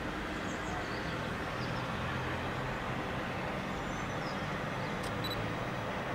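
Steady background hum of distant road traffic, even in level throughout.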